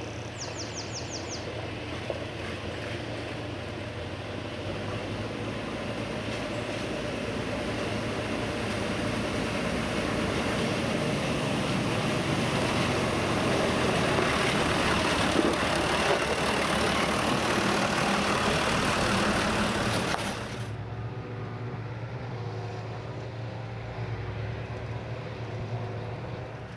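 John Deere 3050 tractor engine running as the tractor comes up a gravel lane, growing steadily louder as it approaches. About twenty seconds in the sound drops abruptly to a quieter, steady engine drone.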